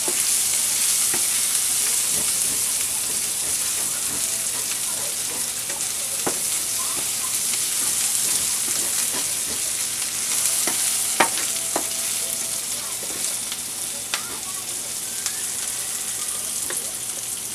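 Diced onion sizzling in hot oil in a stainless steel skillet, stirred steadily, with a few sharp clicks of the utensil against the pan.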